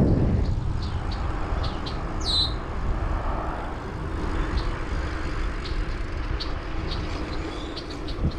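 Low wind and road rumble from riding a bicycle, with birds chirping: short high chirps throughout and one downward-sweeping call about two seconds in.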